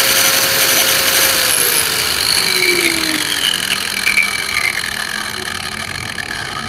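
Caowang CW1336 wall chaser with a thick grinding wheel fitted, running free with no load: a steady motor and gear whine. About a second in the whine starts falling in pitch and slowly fades, as the machine spins down.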